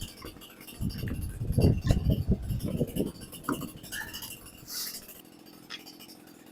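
A run of dull thumps with light metallic clinks, most of them between about one and three seconds in, then a couple of lone clinks: an ATV wheel being handled and refitted onto its hub.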